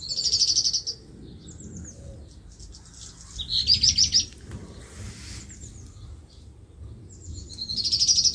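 A songbird singing three short, rapid trills, each about a second long and about three and a half seconds apart.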